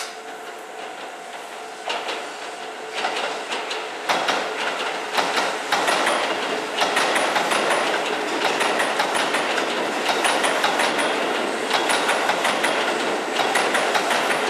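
Hokuso Railway 7300 series electric train passing close by, its wheels clattering in rapid clicks over the junction's points and rail joints. The sound builds over the first few seconds as the cars draw level and then stays loud.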